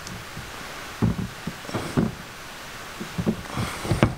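A few soft, irregular knocks and rubbing sounds from hands working a very tight rubber vacuum tube onto its fitting on a Rotax Max kart engine.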